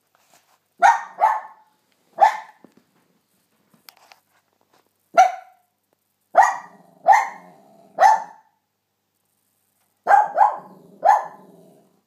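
Cairn terrier barking: about ten short, sharp barks in clusters of two or three, with pauses of a second or more between them.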